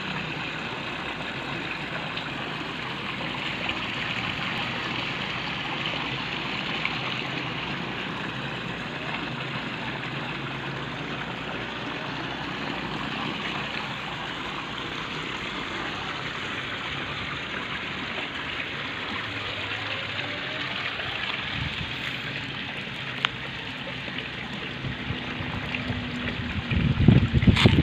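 Water jets from a swimming pool's return inlets spraying and splashing into the pool, a steady rushing, pushed by the newly installed pool pump. A burst of louder low rumbling comes near the end.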